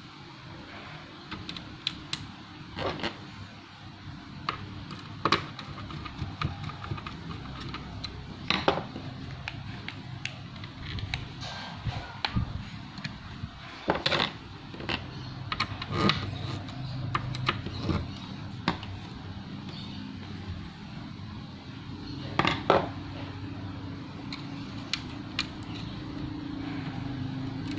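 Irregular light clicks and taps of small hard parts being handled while a laptop is reassembled, over a steady low hum.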